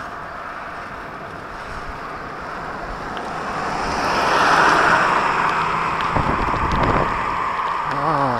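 Wind rushing over a moving microphone along a road, with traffic noise swelling about halfway through. A brief wavering tone comes near the end.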